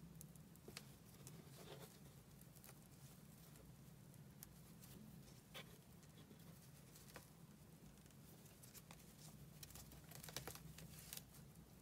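Near silence: faint scattered clicks and rustles of a crochet hook working jute yarn into slip stitches, over a low steady hum.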